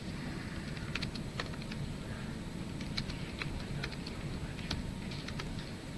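Typing on a computer keyboard: a dozen or so light keystroke clicks at an uneven pace over a steady low background noise.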